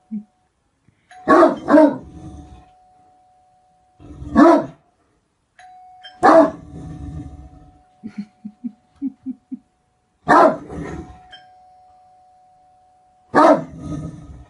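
Great Dane barking: deep single and double barks every few seconds, with a quick run of short, low, softer sounds between them about eight seconds in.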